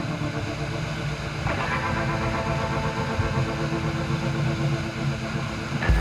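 Scale RC crawler's electric motor and gear drivetrain whining steadily as the truck drives through shallow creek water; the whine shifts pitch about a second and a half in.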